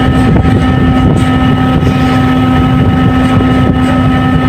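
Fishing vessel's engine and deck machinery running steadily: a loud, constant drone with a few fixed tones over a low rumble.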